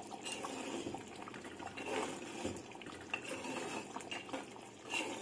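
Metal spoon stirring thick tamarind curry in a clay pot: quiet wet sloshing, with a few faint knocks of the spoon.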